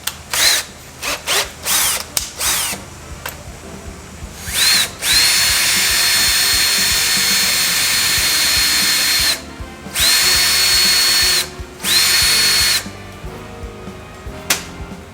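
Electric drill boring a 5.2 mm hole into a seized brake caliper piston. It starts with a few short trigger blips, then runs in three longer bursts, each spinning up with a quick rising whine before holding steady.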